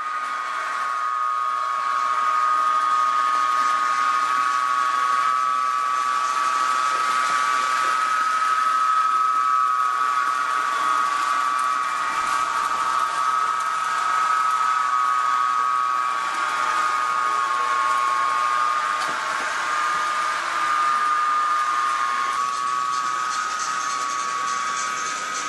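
N-scale model trains running on a layout: a steady high whine from the locomotives' small electric motors over a constant hiss of wheels on track, the pitch wavering slightly.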